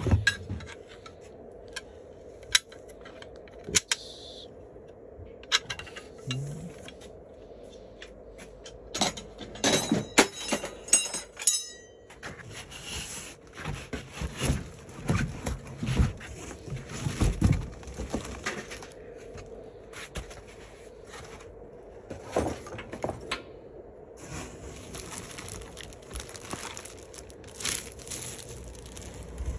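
Cardboard packaging being handled: the box's cardboard lattice inserts are lifted out, scraping, creaking and knocking against the box in scattered bursts. There is a cluster of sharp knocks about a third of the way in.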